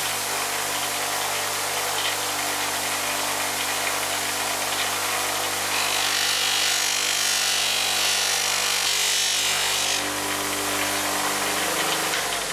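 Bench buffer running steadily with a stitched cloth buffing wheel spinning at speed. From about six to ten seconds in, a metal wrench part is pressed against the wheel, and a louder, brighter hissing rub is added over the motor hum.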